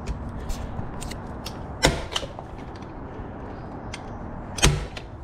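A Tacwise staple gun fires twice, with two sharp snaps about three seconds apart, tacking a cable to a wooden beam. Lighter clicks of handling come between the shots.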